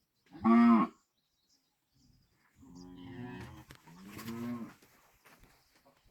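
Cattle mooing: one loud, short moo about half a second in, then two longer, quieter moos in the middle.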